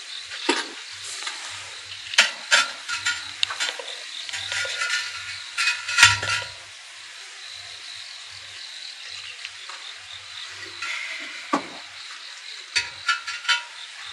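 Large wood-fired ceramic jar scraping and clinking against the kiln shelf as it is set down and shifted, with gritty crunching and sharp clicks in clusters. There is a heavier knock about six seconds in and another short run of clicks near the end.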